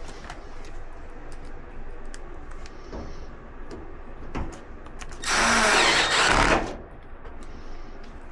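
Power drill/driver running once for about a second and a half while working screws on an appliance, amid light clicks and knocks of parts being handled.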